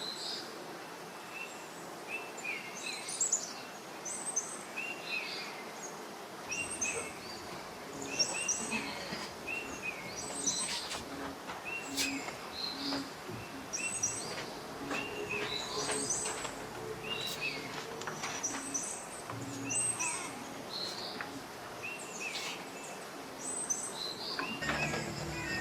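Small birds chirping: many short, repeated calls in quick succession, some higher and some lower in pitch, over a steady outdoor background.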